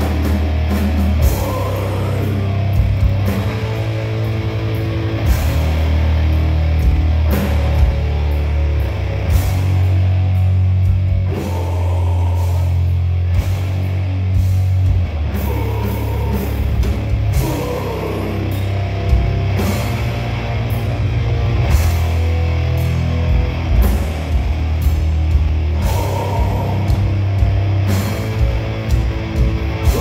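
Live heavy rock band playing loudly: electric guitars and bass hold heavy low notes over a drum kit, recorded from the audience.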